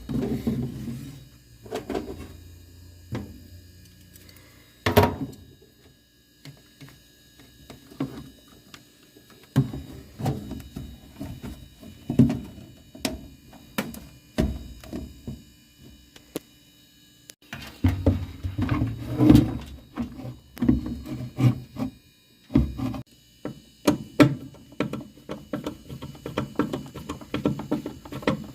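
Background music, with a few sharp knocks.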